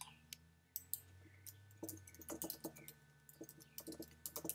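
Typing on a computer keyboard: a quick run of key clicks in short clusters as a search phrase is entered.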